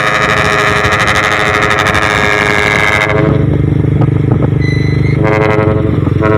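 Ship-style air horns on a Hino 320Ti truck blaring a loud, steady multi-tone chord. About three seconds in, the higher tones stop for around two seconds and a deep horn tone carries on alone, before higher tones begin to return.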